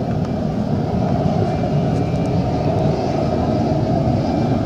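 Gas-fired crucible furnace burner running, a steady rush of gas flame heating the metal charge for melting.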